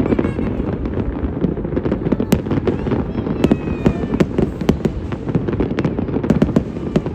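Fireworks display: a continuous rumble of aerial shell bursts, with many sharp cracks and a few brief whistles.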